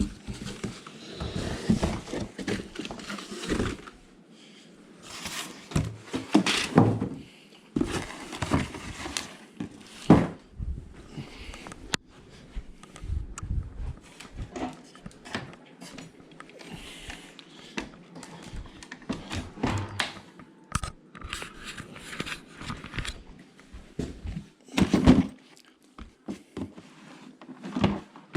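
Irregular knocks, thumps and rustling from objects being moved and handled by hand, with a few sharper knocks spread through, the loudest about 25 seconds in.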